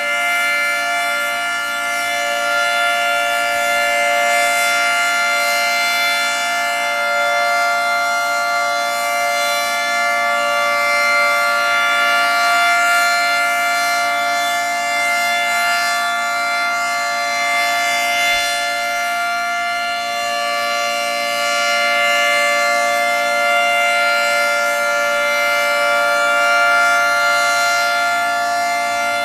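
Federal Signal 2T22 dual-tone rotating siren sounding a steady chord at full speed during a test. It holds its pitch throughout and swells and fades gently every several seconds as the rotating head sweeps past.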